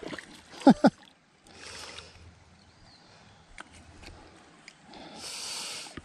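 Small walleye splashing at the surface as it is reeled in and lifted out of the creek. There are two splashy bursts, a weaker one about two seconds in and a louder one near the end as the fish comes out of the water. A brief falling vocal whoop comes under a second in and is the loudest sound.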